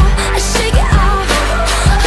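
Background pop music with a steady drum beat and a melody line.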